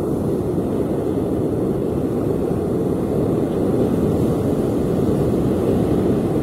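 Steady low roar of sea surf on a sandy beach, growing slightly louder about four seconds in.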